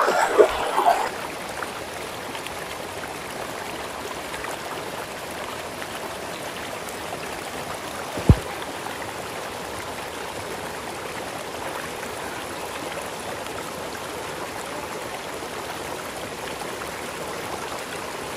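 Shallow river water running steadily over rocks, a constant rushing flow. A single sharp thump sounds about eight seconds in.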